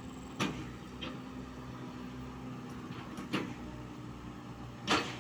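A steady mechanical hum with three sharp knocks: one about half a second in, one past the middle, and the loudest near the end.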